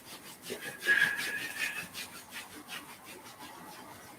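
Hands rubbing back and forth along the shins in quick, even strokes, about three or four a second, fading toward the end, with a brief high squeak about a second in.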